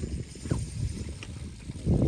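Wind buffeting the microphone: an uneven low rumble, swelling louder near the end, with a few faint clicks.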